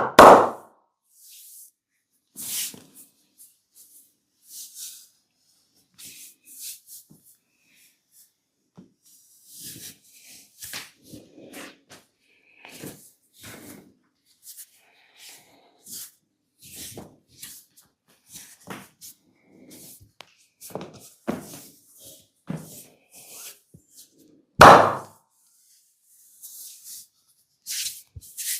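Hands working on a person's body in a massage: a run of short knocks, taps and rubbing noises at uneven intervals, with two much louder thumps, one right at the start and one about 25 seconds in.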